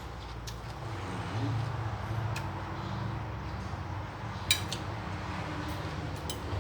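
A few light clicks and clinks over a steady low hum, the sharpest clink about four and a half seconds in.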